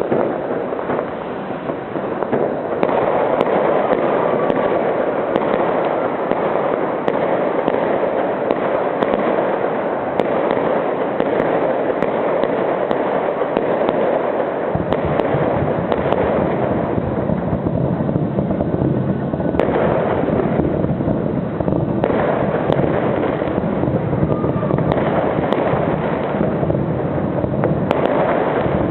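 Dense, continuous barrage of fireworks going off, the bangs running together into a steady rumbling crackle. It grows louder about three seconds in and heavier in the bass from about halfway.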